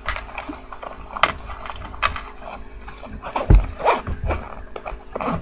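Rustling and light clicks and knocks of small items being handled and moved in a bag, with a dull thump about three and a half seconds in.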